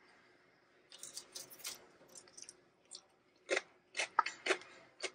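Crisp crunching of oven-baked radicchio chips: a quick run of crackles about a second in, then separate sharp cracks roughly every half second through the second half.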